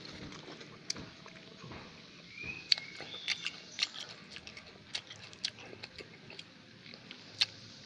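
A person chewing raw kencur (aromatic ginger) root close to the microphone: irregular crunches and wet mouth clicks, the chewing that releases the root's juice as a home cough remedy.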